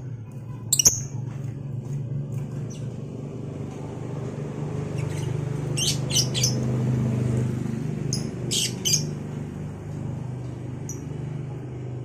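Lovebirds giving short, shrill chirps in small clusters a few seconds apart: one about a second in, three quick ones around six seconds, a burst around eight and a half seconds and one near eleven seconds. A steady low hum runs beneath.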